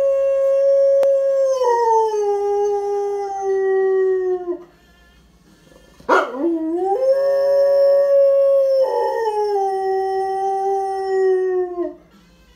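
Rottweiler howling, or 'singing', in two long drawn-out notes. Each note is held high and then steps down to a lower pitch. After a short pause, the second note starts with a sharp yelp about six seconds in, rising into the howl.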